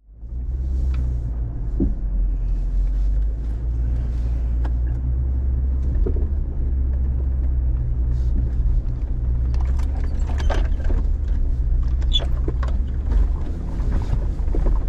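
Jeep Gladiator Rubicon driving on a rough off-road trail: a steady low engine and drivetrain rumble, with scattered clicks and knocks that become more frequent about ten seconds in.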